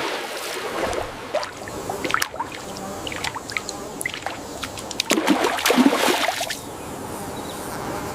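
Water splashing and trickling in a run of short splashes, loudest and busiest about five to six seconds in.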